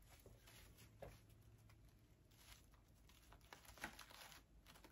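Near silence with faint rustling and a few light clicks from artificial flowers being handled and pushed into place.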